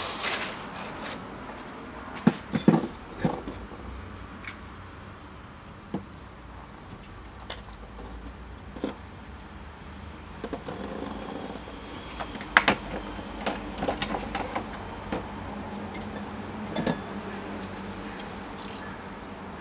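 Hand tools clinking and knocking on the steel bolts, nuts and mounting brackets of a motorcycle crash bar as it is bolted on: scattered sharp metallic clicks, loudest a couple of seconds in and again past the middle, over a faint low hum.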